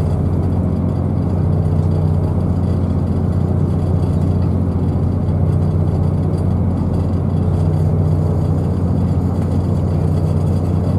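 Inside a British Rail Class 221 Supervoyager diesel-electric train running at speed: a steady low drone from its underfloor diesel engines and running gear.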